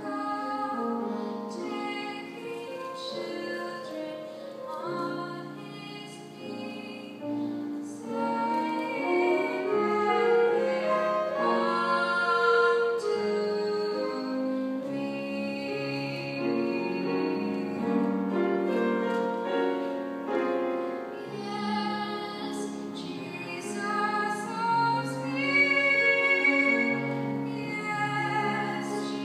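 A teenage girl and boy singing a song together, with several notes sounding at once.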